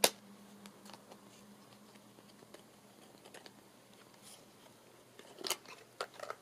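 Fingers handling a small cardboard box and a plastic foundation stick: one sharp click at the very start, scattered faint taps, then a cluster of clicks and scrapes near the end as the stick comes out of its box.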